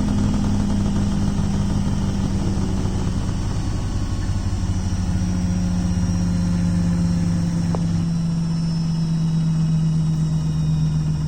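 Beko WTK washing machine running with a steady motor hum and a low rattle, a new rattling noise that points to a developing fault. The hum's pitch drops slightly about four seconds in, and a single faint click comes near the end.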